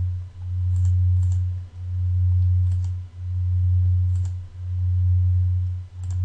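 A loud, low steady hum that dips and swells again about every second and a half, with a few faint mouse clicks over it.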